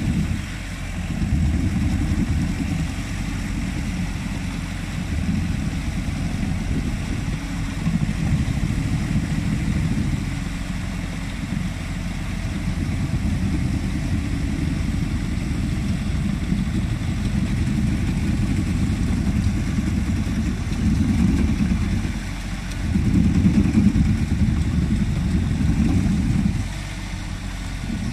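Engine of an amphibious Truxor reed cutter running steadily as it drives through canal water, with water churning at its stern. The engine sound swells louder for a few seconds near the end.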